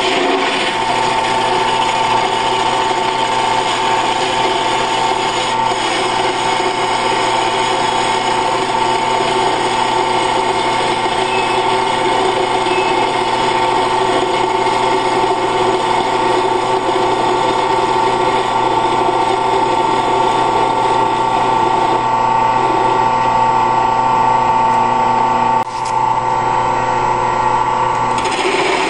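A 10 x 18 wood lathe, converted to cut metal, running steadily under power while turning an aluminium workpiece: the motor and drive hum evenly at a constant speed. The sound dips briefly near the end.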